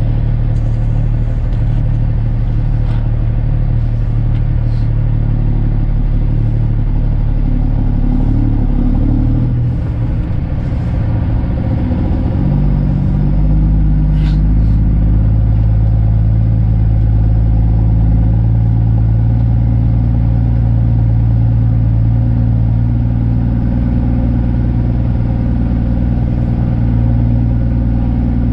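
Straight-piped Kenworth C500 truck's diesel engine pulling at low speed, heard from inside the cab. The engine note shifts about halfway through and then runs a little louder.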